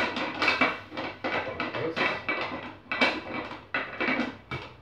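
Metal lid clanking against a stainless steel cooking pot as it is fitted back on: a quick run of metallic knocks, about three a second, each with a short ring.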